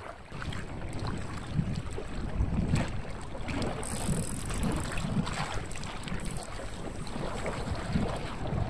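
Uneven wind noise buffeting the microphone, with sea water lapping below.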